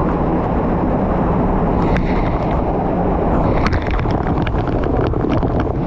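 Small waterfall and creek water rushing in a loud, steady, dense noise, with a run of sharp clicks and taps over it in the second half.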